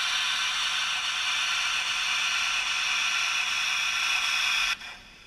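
Sound decoder of a model Gr.685 steam locomotive playing a loud, steady steam hiss through its small onboard speaker, with no low end; the hiss cuts off suddenly near the end as the model starts to pull away.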